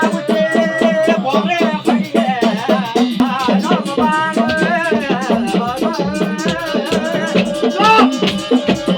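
Pahadi folk devotional music: a hudka hand drum beaten in a quick, steady rhythm under a wavering sung melody.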